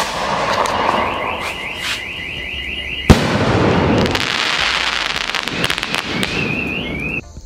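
A 3.5-inch aerial sky-shot shell (Sony Vinayaga 'Gem Park') launching with a sudden thump and a rushing hiss as it climbs, with a high warbling tone over it. About three seconds in it bursts with a sharp bang, the shell having risen to full height, and then many small crackles follow as the stars fall and fade.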